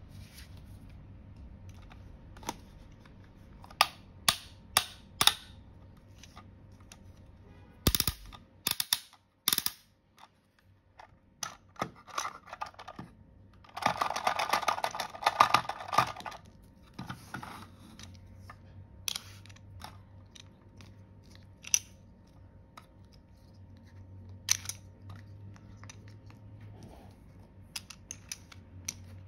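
Hard plastic toy pieces clicking and clacking as they are handled and set down, with a quick run of sharp clicks about four to five seconds in and louder ones around eight to ten seconds. A paper sheet crinkles for about two seconds midway.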